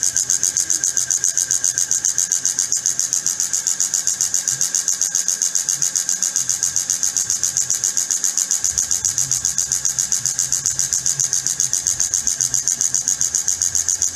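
Shop-built Timken-type oil load tester running under a heavy stack of lever weights: the steel ring turning against the oiled steel test block gives a loud, high-pitched sound with a rapid, even pulsing. The oil is being pushed toward its load limit on a hot machine.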